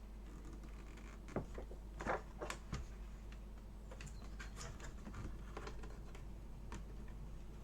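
Light clicks and scratches of plastic and metal laptop parts being handled and pressed into the chassis, a few sharper clicks in the first three seconds, then softer, scattered ticks.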